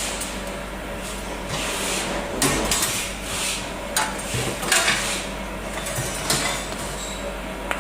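Small rice mill machine running: a steady motor hum under a hiss that comes and goes, with several sharp knocks.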